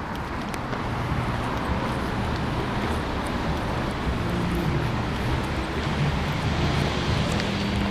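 Steady road-vehicle noise, building up over the first second and then holding.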